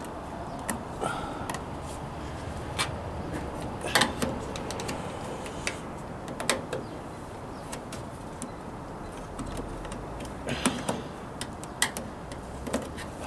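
The plastic hose-inlet cover on the back of a Frigidaire front-load washer is being pried off with a flathead screwdriver, its clips popping loose. There are scattered clicks and snaps of plastic, loudest about four seconds in and again near the end, over a steady background hiss.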